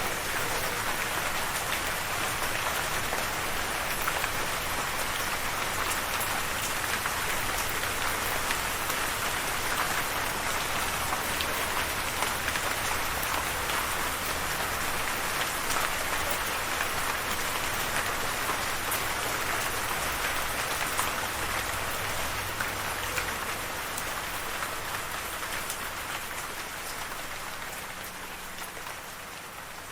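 Steady rain falling, a dense even hiss of many small drops, fading down over the last few seconds.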